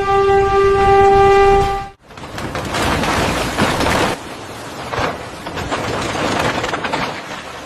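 Train horn sounding one steady note that cuts off abruptly about two seconds in, followed by a noisy rattling rush of a train running on the rails, which drops in level about four seconds in.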